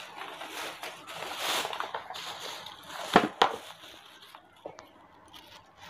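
Plastic packaging rustling and crinkling as stand-fan parts are unwrapped and handled, with two sharp knocks about three seconds in.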